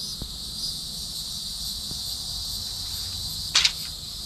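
A steady, high insect chorus of crickets. About three and a half seconds in there is one brief, sharp double clatter.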